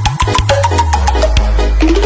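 Loud electronic dance music with no vocals: a fast, even beat over a deep bass line and short synth notes.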